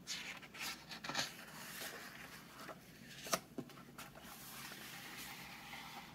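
A hardcover picture book's page being turned by hand: paper rustling and sliding, with a few sharp flaps and taps, the loudest about three seconds in.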